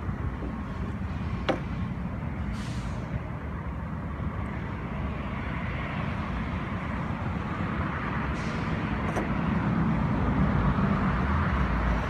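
Steady rumble of road traffic, growing louder near the end as a vehicle draws closer. A sharp click comes about a second and a half in, and two short hisses stand out over the rumble.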